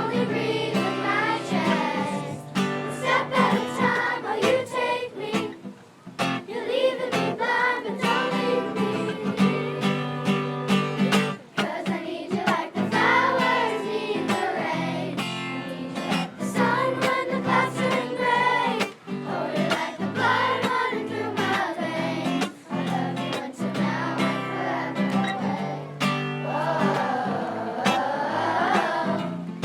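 Children's choir singing a song together over a steady instrumental accompaniment, with brief pauses between phrases.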